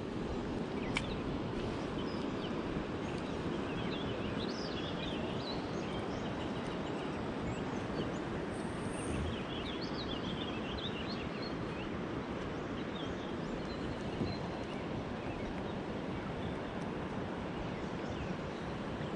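Steady rush of flowing river water, with small birds chirping faintly now and then.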